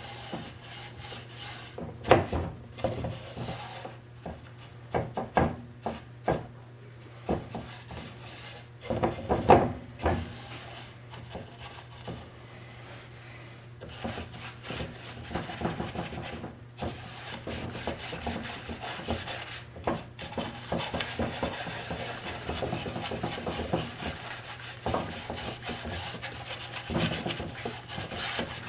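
A cloth rubbing stain into the wood of a wooden machinist chest, a steady scrubbing that fills the second half. Before it, a string of sharp knocks and clatter as things are handled against the wood.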